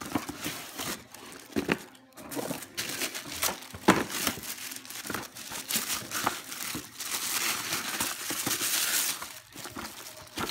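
Christmas wrapping paper being torn and crumpled off a gift box: continuous rustling and ripping with sharp crackles, and a longer, louder crinkling stretch about two thirds of the way through.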